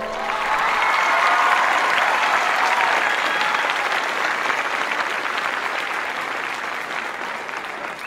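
Crowd applauding, building in the first second and then slowly fading.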